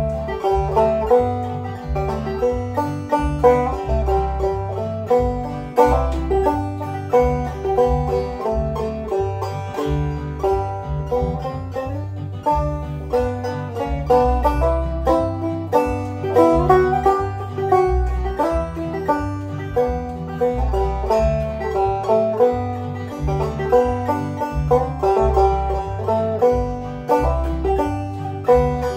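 Deering Clawgrass 2 five-string banjo played clawhammer style in standard G tuning, its plucked melody and brushed strums over a computer-generated backing track with a steady bass line.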